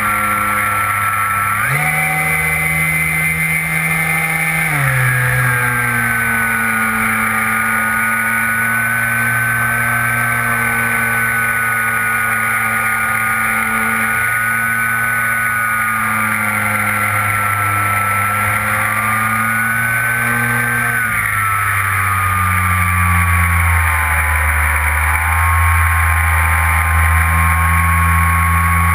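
Brushless electric motor and propeller of an RC plane whining in flight. The pitch jumps up about two seconds in as the throttle is opened, drops back a few seconds later, holds steady, then sinks lower past the two-thirds mark, over a steady rush of air past the wing-mounted microphone.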